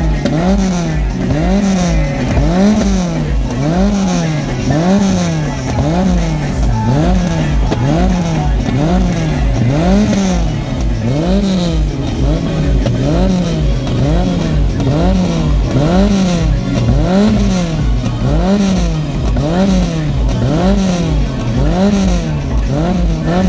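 Peugeot 106 1.4's four-cylinder petrol engine, heard through a stainless steel centre and rear exhaust with twin tailpipes, revved up and let fall again over and over at a standstill, about once a second.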